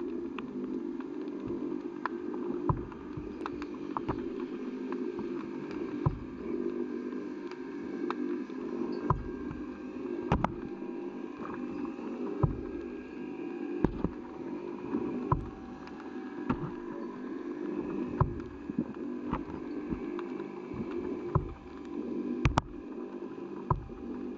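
Underwater ambience in a shallow river: a steady low hum with faint wavering higher tones, broken by sharp clicks scattered irregularly, about one every second or two.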